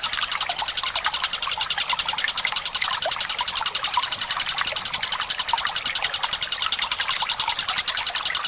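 Tengkek Buto bird calling in a long, unbroken, high-pitched rolling trill of about a dozen pulses a second, over a trickle of running water.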